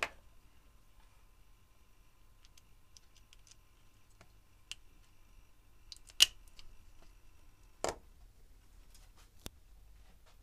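A few sharp clicks and small knocks from handling a spark plug and its rubber plug boot, the loudest a snap about six seconds in as the boot is pushed onto the plug.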